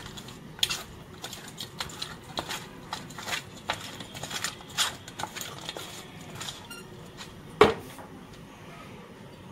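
Small tengra fish being worked by hand with salt and turmeric in a stainless steel bowl: irregular soft clicks and wet slaps of fish against the metal. Near the end, a single louder metallic clank with a short ring as the steel bowl is set down.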